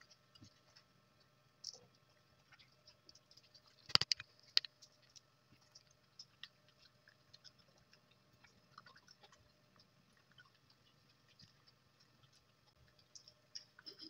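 A dog crunching dry kibble from a stainless steel bowl: scattered faint crunches and clicks, with a louder cluster of sharp clicks about four seconds in.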